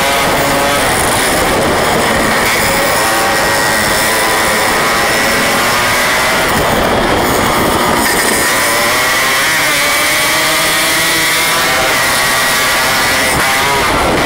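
Yamaha RX King 135cc single-cylinder two-stroke motorcycle engine running hard under way, its pitch rising and falling as it revs up and eases off, with other two-stroke bikes of the group riding alongside.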